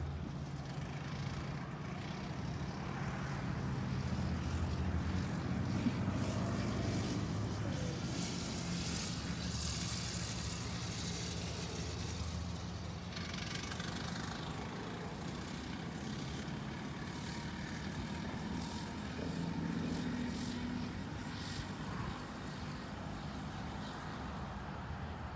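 Small go-kart engine running laps at a distance, its note rising and falling as it goes round the track.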